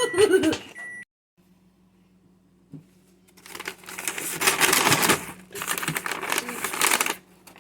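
Paper popcorn bag crinkling and rustling in irregular bursts as it is handled and opened. A steady tone cuts off about a second in, and there is a brief silence and a small click before the crinkling starts.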